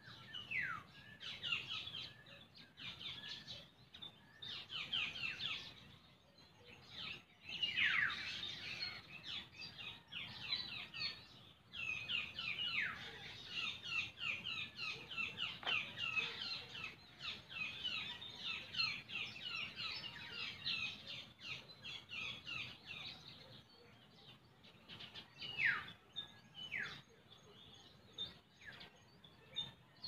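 Birds chirping: many quick down-slurred calls, overlapping thickly in the middle and thinning to a few single calls near the end.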